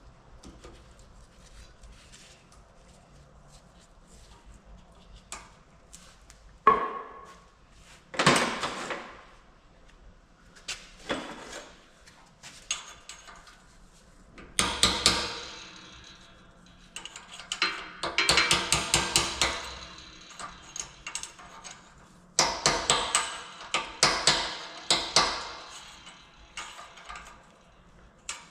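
Steel tools and parts of a Unimog CV joint clinking, tapping and scraping as a snap ring is worked into place: a sharp click about seven seconds in, then several bursts of rapid metallic clicking with quiet gaps between.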